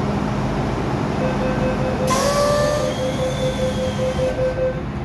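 Rapid, evenly pulsing warning beeps of an MTR M-Train's door-closing signal, lasting about three and a half seconds over the train's steady hum, with a short hiss of air about two seconds in.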